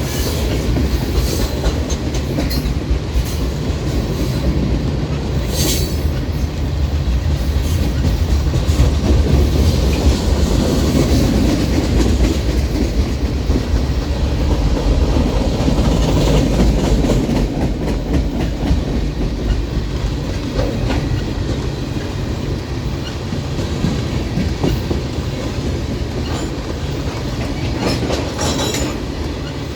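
Freight train rolling past at a crossing: a steady heavy rumble with wheels clacking over the rail joints, swelling in the middle, with a few brief sharp high sounds about six seconds in and near the end.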